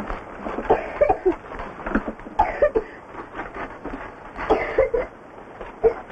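A person's wordless vocal sounds: several short bursts of grunts and brief sounds that slide up and down in pitch, with no words.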